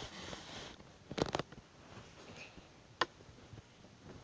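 Handling noise from plush toys being moved against a fabric bedspread close to the microphone: soft rustling, a few sharp clicks about a second in and a single click about three seconds in.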